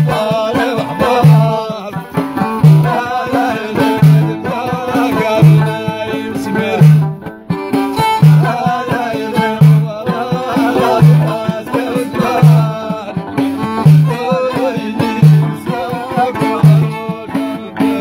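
Amazigh folk music: a hand-held frame drum strikes a deep stroke about every second and a half, under violin played upright on the knee, loutar and singing.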